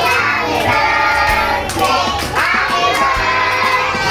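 Young children singing a song together, with music.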